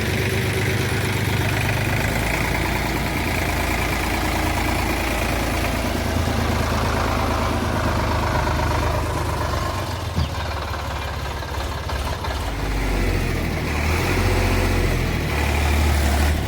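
Heavy diesel engine running, its note shifting and getting louder and deeper in the last few seconds as it takes load. A single short knock about ten seconds in.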